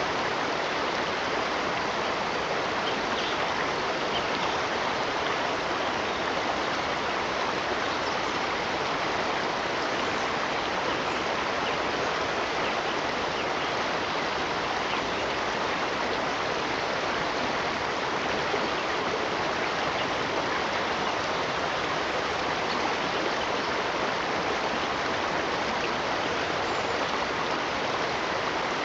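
Steady, unbroken rush of running water, as from a stream.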